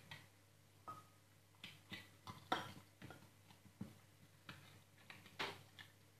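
A metal fork clinking and scraping in a glass canning jar while prying out pieces of chicken stew set in jelly: about a dozen short, sharp clicks at uneven intervals.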